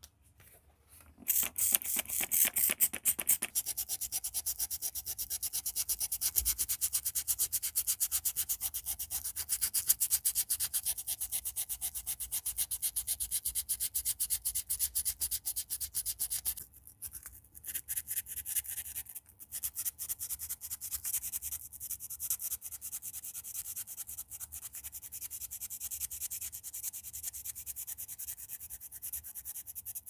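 Sandpaper rubbed by hand against a small brass pocket-knife part in quick back-and-forth strokes, a dry scratchy hiss, with a short pause a little past halfway.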